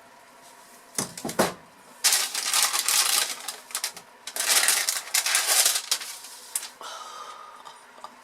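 A blade drawn through a loaf of hot process soap in two long scraping strokes, after a few knocks as the loaf is set in place.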